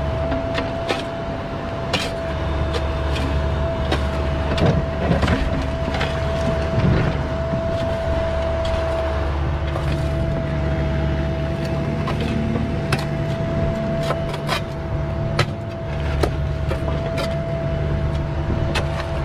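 Cat mini excavator running at working speed: a steady diesel engine drone with a constant high whine from the hydraulics, and scattered knocks and scrapes of the bucket working in stone and dirt.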